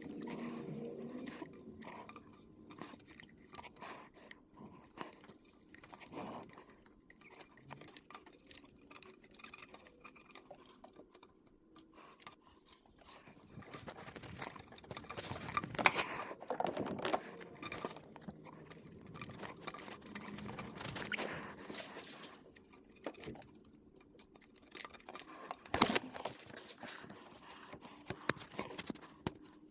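Irregular crunching, rubbing and clicking as a rubber heater hose is twisted and pushed through a retaining clip in the engine bay, with two sharper knocks partway through and near the end.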